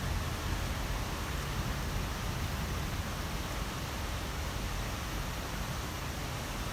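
Heavy rain falling steadily: an even hiss with a deep rumble beneath it, no single drops or other events standing out.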